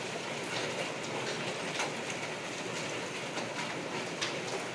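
Hail falling with rain: a steady hiss, broken by scattered sharp clicks of hailstones striking.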